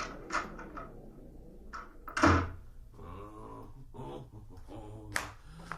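A door being handled, opened and shut with a run of knocks and thuds; the heaviest thud comes about two seconds in.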